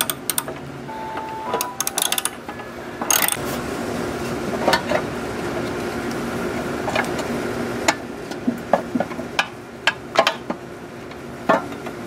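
Socket ratchet wrench clicking in quick runs as a gas-tank bolt is turned out, then scattered clicks and knocks as the plastic fuel tank and carburetor are handled.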